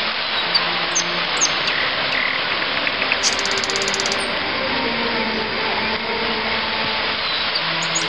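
Steady rushing hiss of many fountain water jets spraying and falling back into a pool. A few bird chirps sound near the start, and a short buzzing trill comes about three seconds in.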